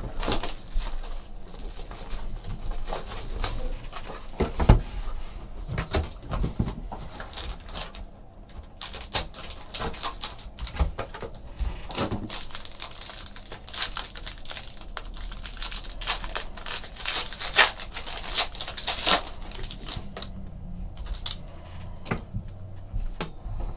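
Plastic shrink wrap crinkling and cardboard being handled as a sealed trading card box is unwrapped and opened: irregular crackles, rustles and light taps.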